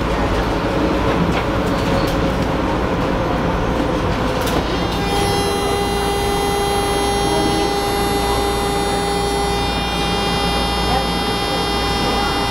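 Hawker Siddeley H5 subway car running, heard from inside: a steady rumble and rail noise. About five seconds in, a steady whine of several tones joins it and holds.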